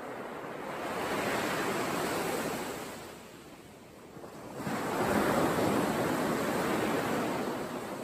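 Surf washing onto a sandy beach as a steady rushing hiss, in two swells. The second swell starts abruptly about halfway through and is the louder.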